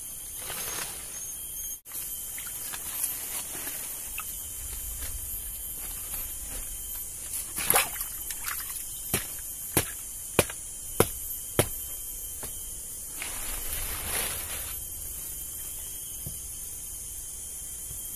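Hands rustling leaves and sticks and stirring the water of a small stream while clearing debris, with a run of five sharp knocks about half a second apart in the middle. A steady high drone of forest insects sits under it all.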